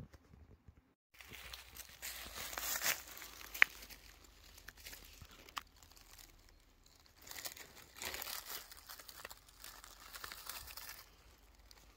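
Dry fallen leaves crackling and rustling as they are disturbed, in two longer bouts, with one sharp click about three and a half seconds in.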